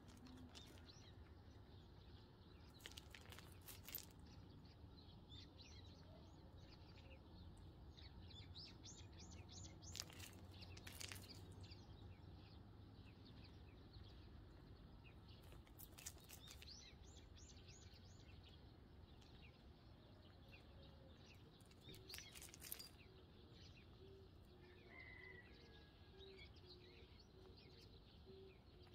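Faint, quick chirping of Eurasian tree sparrows, with a few sharp taps scattered through as hens peck among gravel, over a low steady hum.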